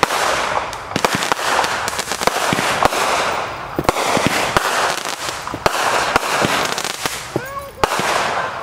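Consumer fireworks going off: a dense crackling hiss packed with sharp pops and cracks, easing off near the end.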